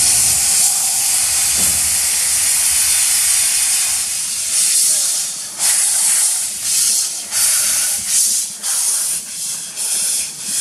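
Narrow-gauge steam locomotive blowing steam from its open cylinder drain cocks: a steady loud hiss at first, then about halfway through breaking into puffs, roughly one a second and then quicker, as the engine starts to move.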